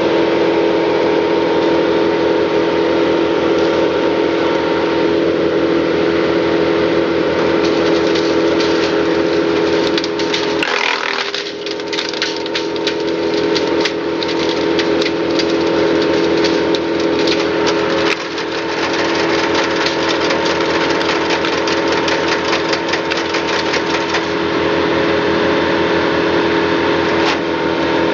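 Timberwolf TW150 disc chipper running steadily while brash and limbs are fed through, the wood crackling and splintering as it is chipped. The engine note sags briefly about ten seconds in and again near eighteen seconds, then recovers.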